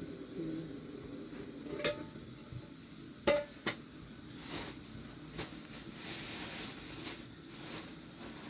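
Pots and utensils clinking: a sharp knock about two seconds in and two more close together a little after three seconds, then a soft, hissy rustle of handling in the second half.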